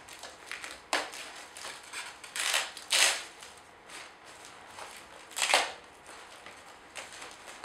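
Aluminium foil crinkling and rustling in a few short bursts as wet cloths are pulled off a foil-lined baking tray.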